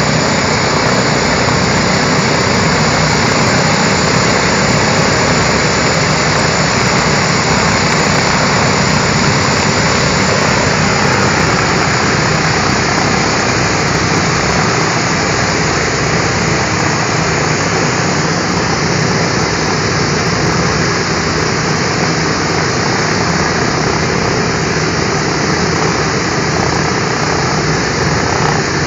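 Four radial piston engines of a B-17 Flying Fortress, Wright R-1820 Cyclones, running steadily together while the bomber stands on the ground, a loud unbroken drone of engines and propellers.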